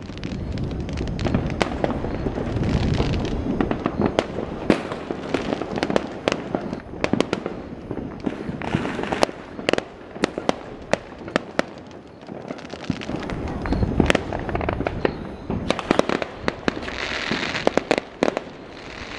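Fireworks going off, a steady run of sharp bangs and crackles over a low rumble. Stretches of hissing crackle come about three, nine and seventeen seconds in.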